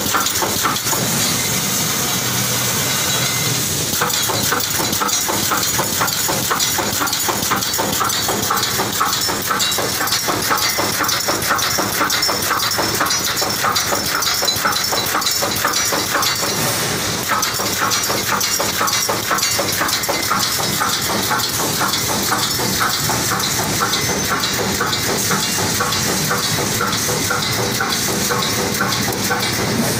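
DP-AW-1200H pneumatic chicken-cage mesh welding machine running in automatic operation: a fast, even clatter from its welding and wire-feed mechanism over a steady hiss of compressed air.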